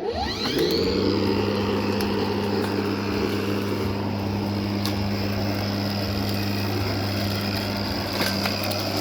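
Battery-powered electric lawnmower starting up: its motor and blade spin up with a rising whine over about a second, then run at a steady hum with a high whine on top.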